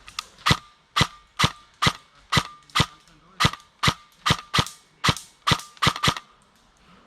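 Airsoft gun firing single shots in a steady run, about fifteen in all at roughly two a second, some coming in quicker pairs, each a sharp crack with a brief ring.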